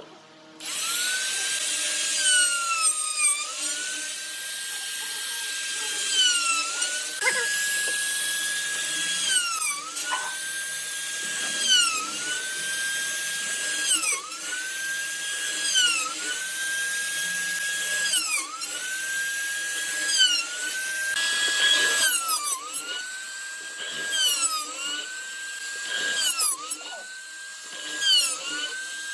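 A small high-speed power tool starts up about half a second in and runs with a steady high whine. Its pitch sags and recovers about every two seconds as it bogs under load cutting into wood.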